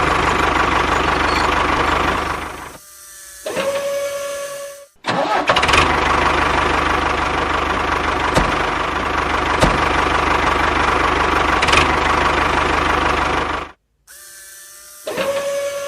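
Engine running steadily, then cutting out about three seconds in; a short steady whine follows before the engine noise comes back. The same thing happens again near the end: the engine cuts out and a steady whine starts.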